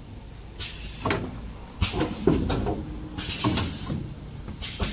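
Kitchen towel roll packing machinery running: irregular clunks and clatter over a low machine rumble, with short hissy bursts.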